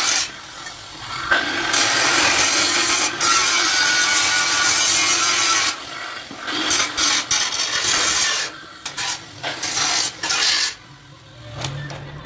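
Angle grinder cutting steel for about four seconds, a steady grinding noise. After that come irregular bursts of metal scraping and rubbing as armature wire is wound around a knife blade and twisted tight.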